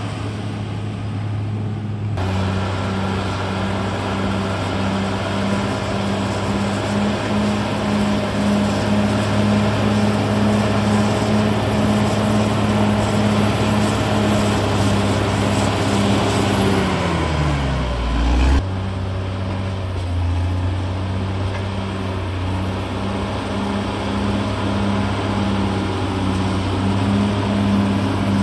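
CAT D6R XL crawler bulldozer's diesel engine running steadily under load while the dozer pushes soil. About two-thirds of the way through, the engine pitch sinks steeply for a couple of seconds, then the sound breaks off suddenly and the steady engine note returns.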